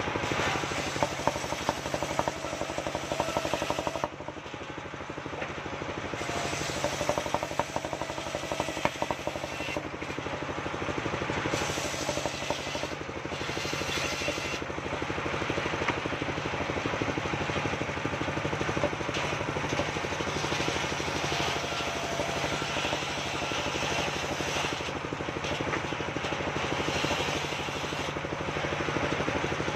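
Engine-driven circular saw on a mobile sawing rig running steadily while ripping waru planks lengthwise, the cutting hiss rising and falling as each plank is fed through and drawn back. Occasional knocks of boards being handled on the saw table.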